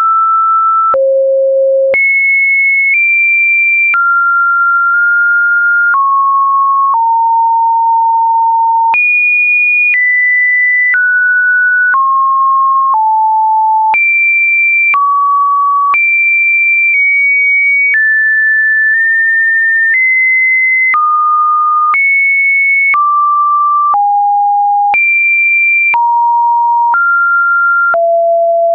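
Synthesized pure sine tones, one after another. Each holds one steady pitch for about a second, occasionally two, then jumps to a new, unrelated pitch from mid to high, with a faint click at each change. This is an automated test-video tone sequence.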